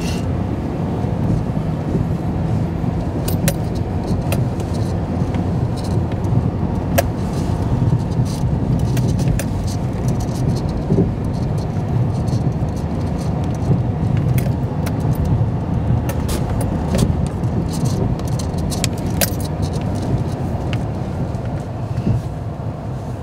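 Steady low engine and tyre rumble inside the cab of a pickup truck driving slowly over a rough grass field, with frequent light rattles and clicks as it bumps along.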